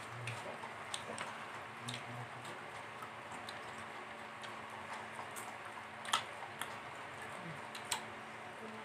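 Eating sounds of people eating with their hands: faint chewing and mouth smacks with scattered short clicks, two sharper ones about six and eight seconds in.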